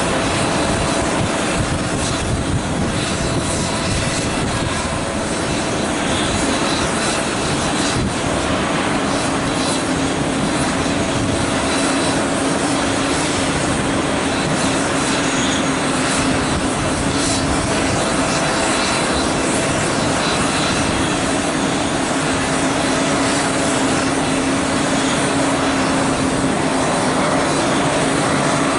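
Steady jet aircraft noise across an airport apron: a continuous rumble and hiss with a steady hum running underneath.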